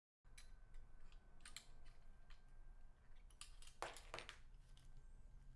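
Faint scattered clicks and taps of small hardware being handled during assembly, with a louder pair of clicks about four seconds in, over a low steady hum.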